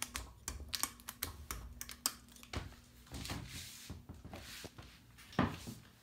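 Hunter Sea Air ceiling fan starting up in reverse on its low speed: a faint steady motor hum under a run of irregular light clicks, with a louder thump about five seconds in.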